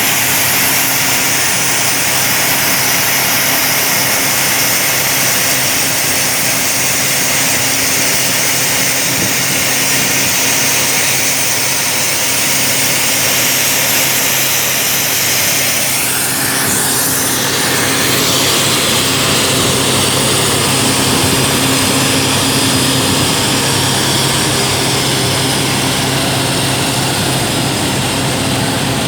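Atlas Copco RD20 III drill rig running steadily and loudly: a steady engine note under a strong hiss, with a brief shift in pitch about two thirds of the way through.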